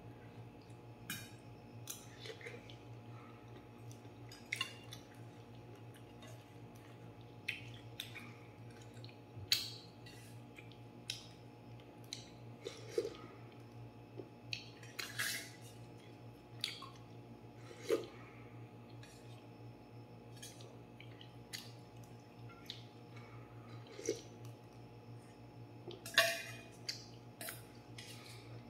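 Metal spoon and fork clinking and scraping against a stainless steel bowl while eating soup, in scattered sharp clicks, a few of them ringing briefly. A steady low hum runs underneath.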